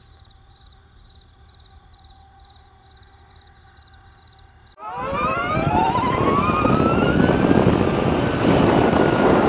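Faint cricket chirping, about two chirps a second, over a low hum. About five seconds in it is cut off by a sudden loud rising whine over a rush of noise that climbs and then levels off.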